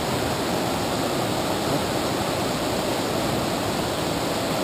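A shallow river rushing steadily.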